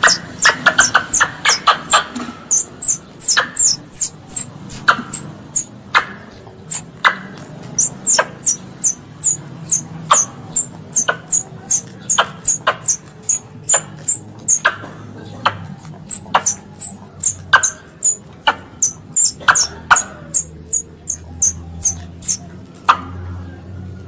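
Squirrel lure call: rapid, high-pitched squirrel chirps repeated a few times a second, each falling sharply in pitch, with sharper clicks mixed in.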